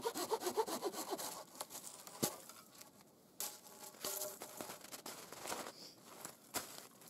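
Hand saw finishing a cut through a log with quick rasping strokes that stop about a second in. A single sharp knock follows a little after two seconds, then faint rustling and crunching in the snow.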